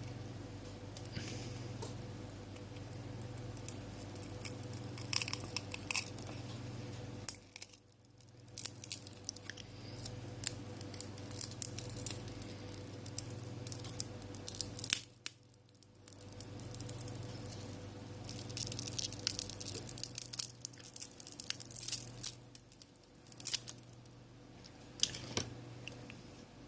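Plastic pry pick working under a phone touchscreen glass, the heat-softened adhesive crackling and tearing in irregular runs of sharp clicks as the glass is lifted away, over a steady low hum.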